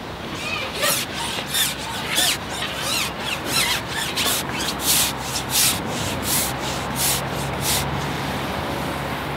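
A carbon fishing pole being shipped back hand over hand, its sections sliding through the hands and across the lap in about a dozen rubbing swishes, roughly two a second.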